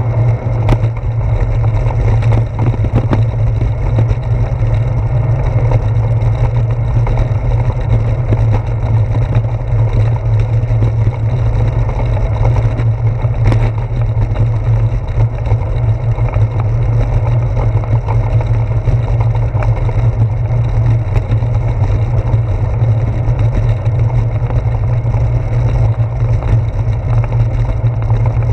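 Steady, loud low rumble of wind and road vibration picked up by a handlebar-mounted GoPro Hero 4 on a moving bicycle, with a few sharp knocks from bumps in the road.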